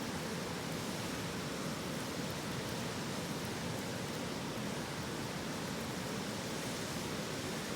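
A river flowing in a steady, even rush of water with no breaks.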